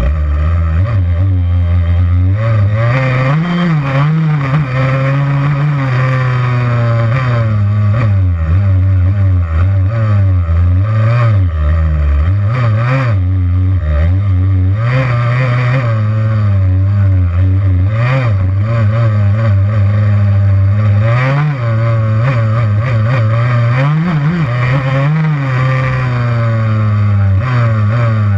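Yamaha YZ85's two-stroke single-cylinder engine running under load, revving up and dropping back again and again as the throttle is worked, heard from on board the bike.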